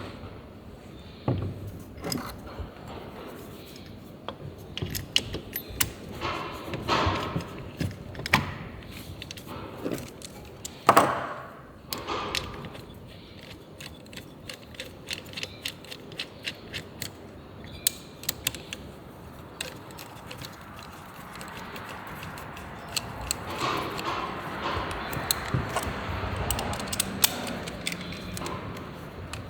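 Metal engine parts and hand tools being handled: scattered clinks, taps and knocks, a louder clatter twice, and a stretch of rougher scraping or rubbing near the end.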